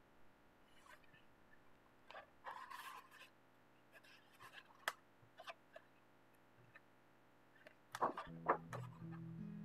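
Paper pages of a coloring book being handled and turned: a rustle about two seconds in, a few light taps and clicks, then a louder flurry of page flips near the end. Soft background music starts just after the last flips.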